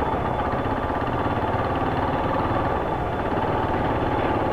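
Motorcycle engine running steadily at low speed, with a fast, even beat of firing pulses.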